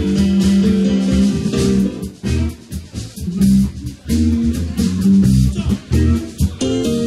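Live blues-rock band playing: electric guitar, keyboard and drum kit over a deep low line, with short stops between phrases in the middle.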